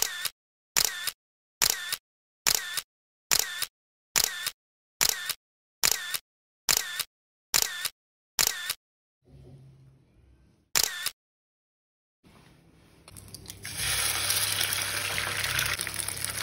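A camera-shutter sound effect repeated about a dozen times, a little under a second apart, then once more. Near the end an egg frying in oil in a hot pan sizzles, a steady hiss that swells up and grows loud.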